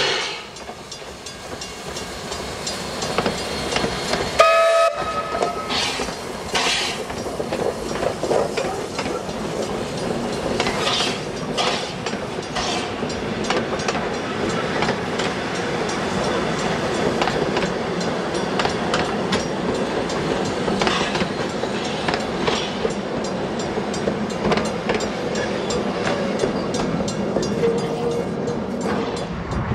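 Steam locomotive W934 gives one short whistle blast about four and a half seconds in as it passes, then its train of wooden carriages rolls by with the clickety-clack of wheels over the rail joints.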